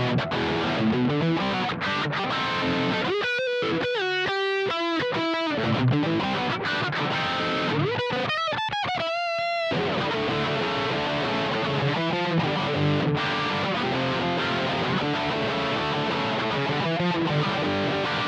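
PRS SE 245 electric guitar played through a PRS MT15 amp head, playing continuously. A few seconds in there is a run of separate single notes, and at about eight seconds there is a lead phrase with a string bend and vibrato.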